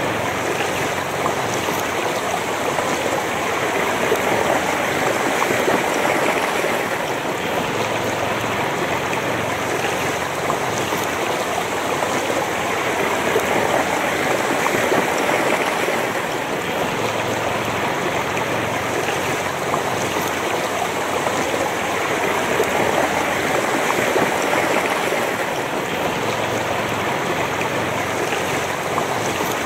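Shallow, fast river rushing over stones: a steady wash of water that swells and eases slowly every several seconds.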